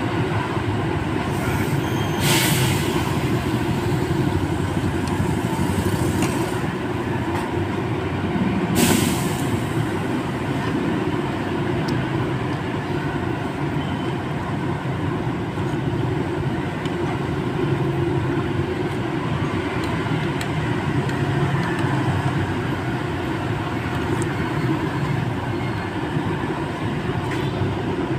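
Steady rumble of an idling coach engine and street traffic, broken by two short hisses of released air, about two seconds in and about nine seconds in.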